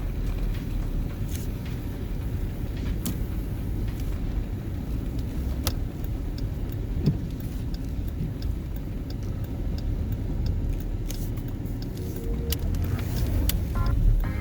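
Dodge Durango driving through snow, heard from inside the cabin: a steady low rumble of engine and tyres, with scattered small clicks and ticks.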